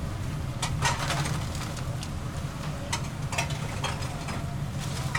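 Steady low machine hum with scattered sharp clacks and clinks of kitchen utensils at a street-food stall, about half a dozen at irregular intervals.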